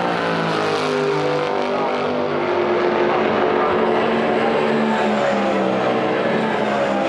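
Several Superstars Series racing cars on track, their engines running hard at high revs. Several engine notes overlap, each rising and falling as the cars speed up, brake and pass.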